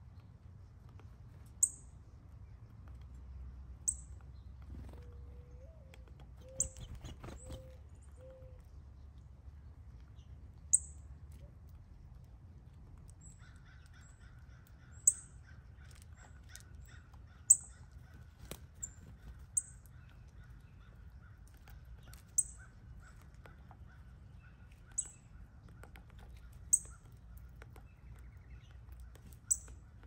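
A bird gives sharp, high single chips, one every two to three seconds. A crow caws a few times about six to eight seconds in. A faint steady hum starts about halfway.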